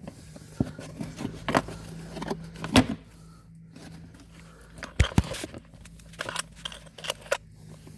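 Scattered clicks and light knocks of plastic clips and wiring being handled as the ABS sensor wiring connector on a car's front wheel is pulled apart and freed. A faint steady hum runs under the first three seconds.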